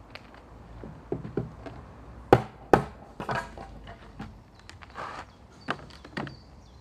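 Claw hammer banging on wooden pallet boards to knock the stubborn middle ones loose: a string of irregular knocks, the two loudest a little over two seconds in.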